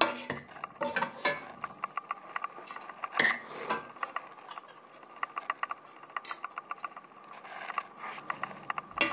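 Metal fork and spoon clinking and scraping against a stainless steel stockpot as spaghetti is tossed: a run of quick small clicks with a few louder knocks in the first few seconds.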